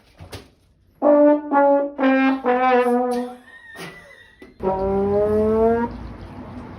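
Brass-like horn tones: four short held notes in quick succession, then one longer note that rises slightly in pitch.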